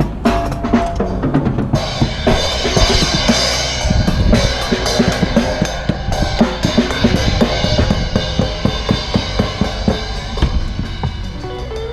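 Gammon junior drum kit played freely with rapid kick and snare hits; cymbals wash in about two seconds in and keep going under the beats.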